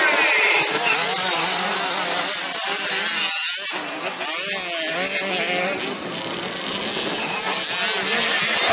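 A pack of 65cc two-stroke motocross bikes racing together, many engines revving up and down at once as they accelerate and shift. The sound dips briefly about three and a half seconds in.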